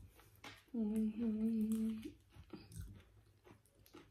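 A woman humming one drawn-out, closed-mouth note for about a second, with soft crunching from chewing tortilla chips and taco dip through the rest.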